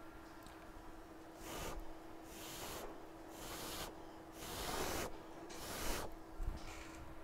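Four short puffs of breath blown onto a freshly soldered iPhone X logic board to cool it down, each a hiss of air about half a second long, over a steady low hum.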